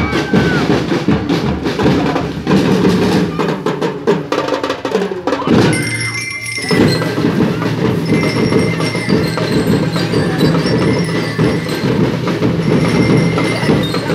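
Drum and lyre band playing: fast, dense snare and bass drum beats, with high ringing notes over them from about halfway. The drumming thins out briefly a little after halfway.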